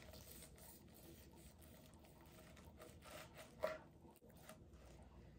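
Faint crackling and scraping of a knife sawing through the crispy breadcrumb crust of a baked stuffed chicken breast on a wooden cutting board, with one louder crunch about two-thirds of the way in.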